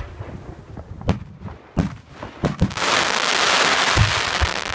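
Zambelli aerial fireworks shells going off: several sharp bangs, then a dense crackling hiss from glittering stars for about two seconds, cutting off suddenly near the end with one more thud inside it.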